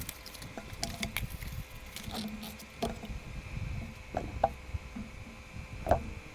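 A mouse box and its packaging being handled: scattered light taps, clicks and rustles, the loudest about four and six seconds in, over a faint steady whine.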